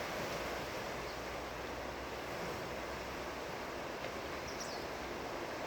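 Steady wash of surf and wind at the shore, an even rushing noise without distinct wave crashes, with a brief faint high chirp about three quarters of the way through.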